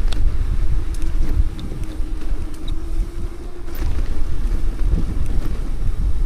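Wind buffeting the microphone of a bicycle riding down a mountain road, a loud rough rumble. A steady low hum runs through the first three and a half seconds, then stops.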